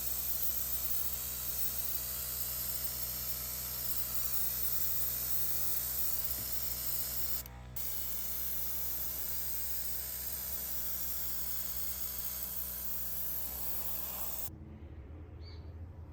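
A small electric motor running steadily with a hum and a strong hiss, briefly interrupted about halfway through, then shutting off near the end.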